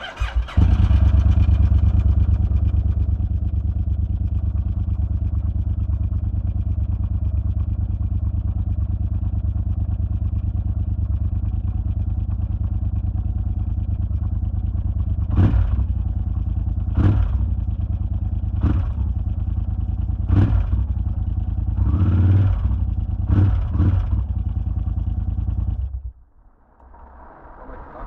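Yamaha TDM motorcycle's parallel-twin engine starting and idling steadily, then revved in about seven short throttle blips. It is switched off a couple of seconds before the end.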